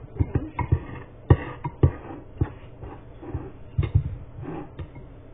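A spoon knocking and clicking against a bowl while stirring a toothpaste and baking soda mixture: irregular knocks, about a dozen, thinning out near the end.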